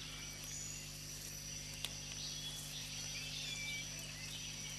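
Faint tropical forest ambience: a steady insect drone with scattered short bird or frog chirps, over a steady low hum. A single faint tick about two seconds in.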